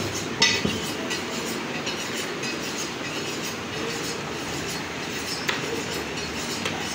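Steady low background noise, with two sharp knocks of a butcher's blade against a wooden chopping block, one just after the start and one about five and a half seconds in.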